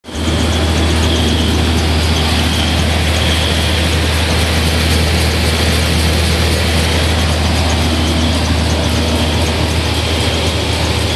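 Household rice milling machine running: a steady low motor hum under a dense rattle and hiss of grain passing through the mill, with milled white rice pouring out of the chute into a bag.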